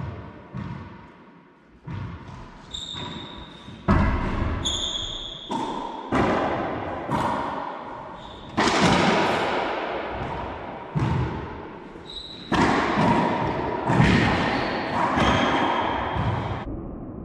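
Racquetball rally in an enclosed court: a steady run of sharp pops as the ball is struck by racquets and smacks off the walls and floor, each hit ringing out in the hard-walled room, roughly one a second. Short high squeaks of sneakers on the hardwood floor come between the hits.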